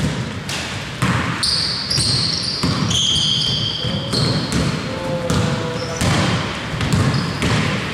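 Basketball being dribbled and bouncing on a gym court, irregular knocks about once a second, with high squeaks of sneakers on the floor through the middle stretch.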